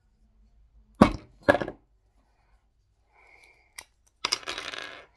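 Small plastic toy pieces handled and fitted together: two sharp clicks about a second in and half a second apart, a lighter click near four seconds, then a short scraping rustle.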